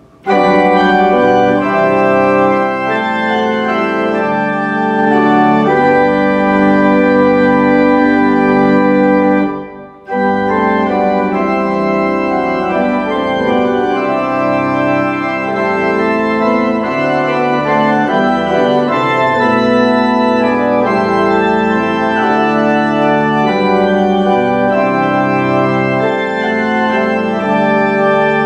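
Church organ playing a hymn in sustained chords, with a short break between phrases about ten seconds in.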